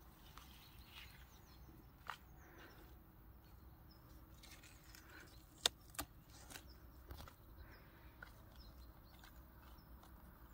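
Very quiet scene with faint scattered bird chirps and a few soft rustles. There are sharp clicks about two seconds in and twice in quick succession just past the middle, from hands picking squash blossoms and handling the plastic basket.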